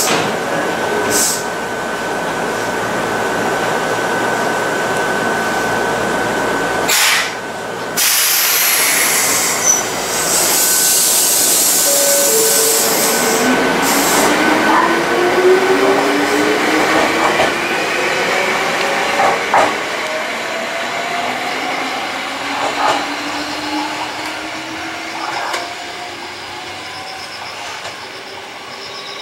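Ohmi Railway electric train pulling out of the station. A steady high tone stops about seven seconds in. The running noise then builds, and the traction motors give a whine that rises steadily in pitch as the train gathers speed, fading toward the end.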